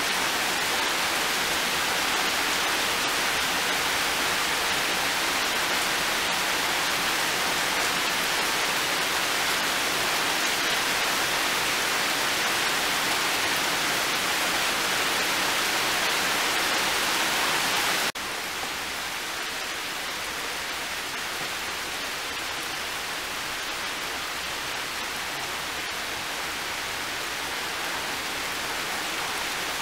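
Heavy rain falling steadily, an even hiss with no single drops standing out. About eighteen seconds in it suddenly drops to a softer level, then swells slightly again near the end.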